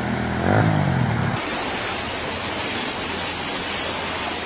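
A brief voice, then an abrupt cut to a steady, even rush of flowing floodwater.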